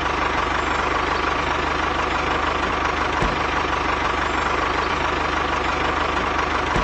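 Small motor of a DIY mini tractor running steadily, with a fast, even chatter and a constant whine.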